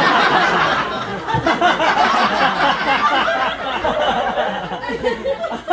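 Live theatre audience laughing loudly, many voices at once, loudest at the start and easing off a little.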